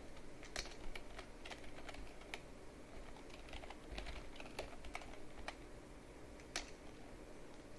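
Computer keyboard typing: irregular key clicks, bunched in quick runs in the first half and sparser after, over a faint steady hum.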